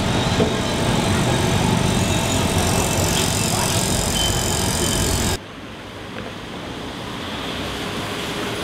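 Street traffic noise, loud and steady until it cuts off abruptly about five seconds in, then quieter traffic noise.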